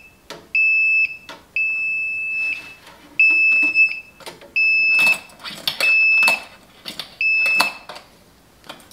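Non-contact voltage tester pen beeping in a steady high tone, about seven beeps of uneven length, as it picks up live voltage on the panel wires now that the key switch is on. Short clicks and rattles sound between the beeps.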